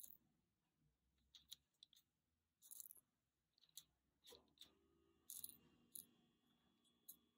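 Faint, scattered light clicks and ticks of small plastic diamond-painting drills being handled with a drill pen. About halfway through, a refrigerator starts up with a low steady hum that carries on.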